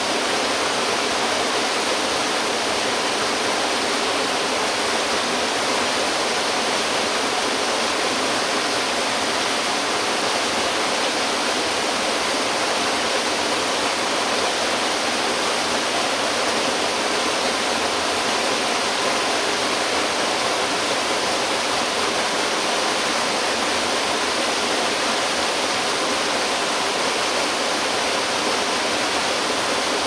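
A small waterfall pouring over rock into a pond, a steady, even rush of falling water.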